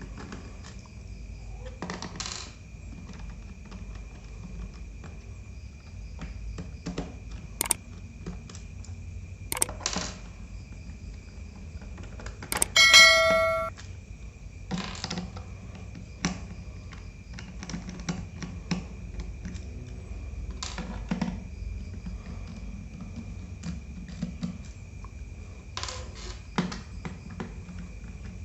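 Scattered small clicks and taps of a screwdriver working the screws out of a laptop's plastic bottom cover. About halfway through, a louder metallic clink rings out briefly, like a small metal part dropped onto a hard surface.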